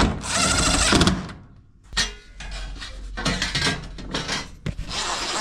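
Metal clattering and knocks as sheet-metal dryer panels and parts are handled and fitted back together, with a sharp knock about two seconds in and another near the end.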